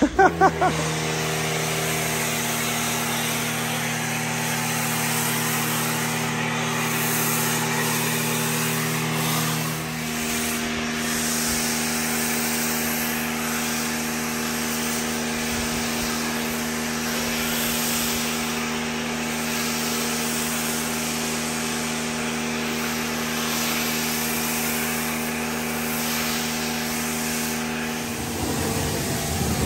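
Pressure washer running steadily, its motor and pump humming under the hiss of a foam cannon spraying snow foam. The lowest note of the hum drops out about ten seconds in, and the hum stops shortly before the end.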